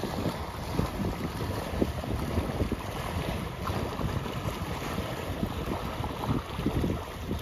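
Sea waves with wind blowing against the microphone, a steady rushing noise that buffets in many small gusts.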